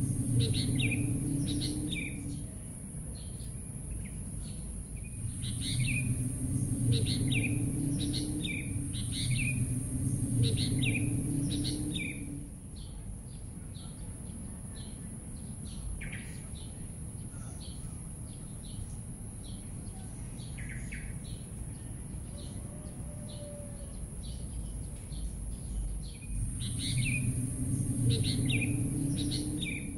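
Birds chirping, in spells of short repeated calls: at the start, again from about five to twelve seconds in, and near the end, with a low rumble under each spell and fainter chirps between. A steady high hiss runs underneath.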